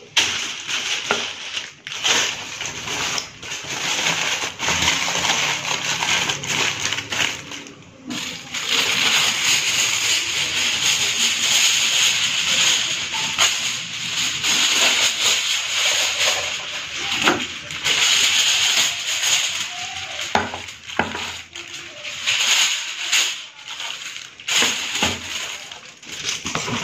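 Aluminium foil crinkling and rustling as it is handled and wrapped by hand around a leg of mutton, with a sheet pulled off the roll. It makes a dense crackle with many sharp crackles and clicks throughout.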